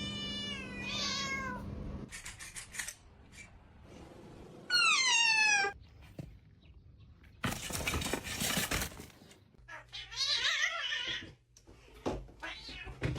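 Domestic cats meowing: several separate drawn-out meows, each sliding down in pitch, the loudest about five seconds in. A loud, harsh noisy stretch sits between them at about the middle.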